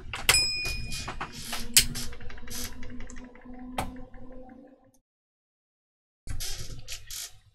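Irregular clicks and knocks of tools and parts being handled on an electronics repair bench, with a brief high ring just after the start and a low steady hum in the middle. The sound cuts out completely for over a second past the middle, then the clicking resumes.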